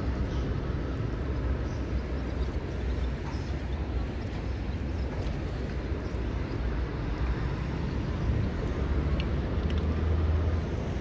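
Wind buffeting the microphone, a low uneven rumble that swells near the end, over a steady rush of flowing river water.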